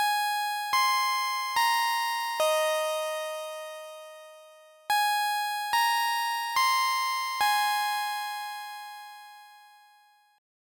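Intro jingle of synthesized keyboard chime notes: a four-note phrase played twice, each note struck and left to ring out.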